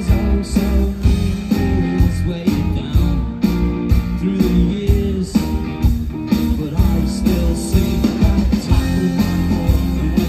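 Live rock band playing electric guitars, bass and drums through the PA, with a steady drum beat, heard from the audience.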